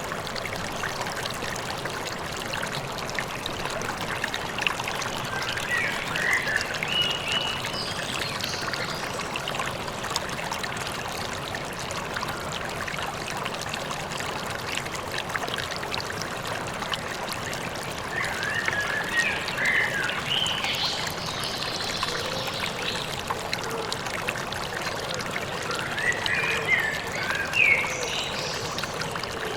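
River water flowing steadily, with songbirds chirping in three spells: a few seconds in, around the middle, and near the end.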